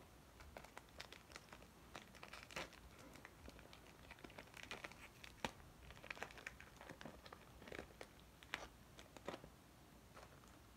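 Faint crinkling and tearing of a 2017-18 Upper Deck MVP hockey card pack's foil wrapper being opened by hand, a run of scattered crackles and ticks that stops about a second before the end.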